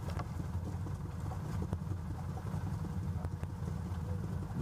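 ATV engine running with a steady low rumble, with a few light sharp knocks over it.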